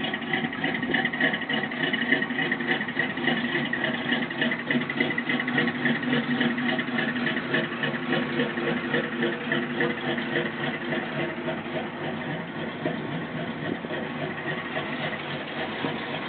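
1988 Chevrolet Monte Carlo SS V8 with an aftermarket cam, idling through Flowmaster mufflers while warming up, with an uneven, pulsing beat.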